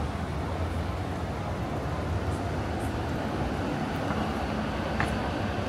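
Steady low rumble of city vehicle noise on a busy street, with a single sharp click about five seconds in.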